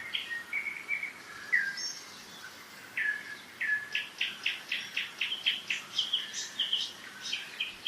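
Songbirds singing in a spring forest: a few short whistled notes in the first two seconds, then from about three seconds in a fast run of repeated high chirps, several a second, overlapped by a second bird's notes.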